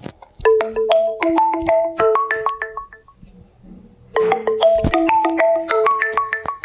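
Phone ringtone: a short melody of quick, bright pitched notes, played twice with a pause of about a second between, after a brief click at the start.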